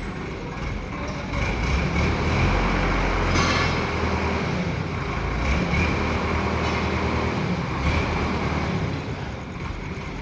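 A heavy engine running steadily, growing louder about two seconds in and easing off near the end.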